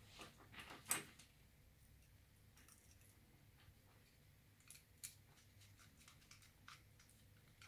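Faint clicks and taps of a plastic smart wall switch being handled while a wire is fitted into its terminal and a small screwdriver is worked on the terminal screw. The sharpest click comes about a second in, with another about five seconds in.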